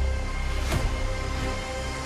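Electronic TV theme music: a heavy bass drone under held steady tones, with a single sharp hit about three-quarters of a second in.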